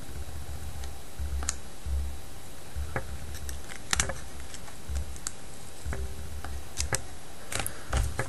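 Irregular small clicks and scrapes of a plastic pry card working under the glued screen assembly of an HTC Inspire phone, levering it loose from its adhesive.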